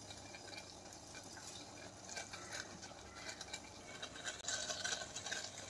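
Faint ticking and light bubbling of water heating toward the boil in a stainless steel pot.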